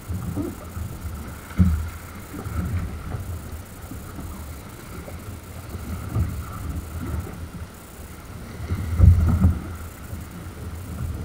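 Choppy sea water slapping and sloshing against a kayak hull, with wind buffeting the microphone; irregular low thumps, a sharp one about a second and a half in and the loudest around nine seconds.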